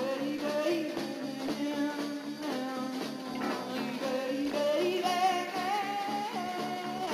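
Rock band playing live, with a male voice singing the lead over electric bass and guitar.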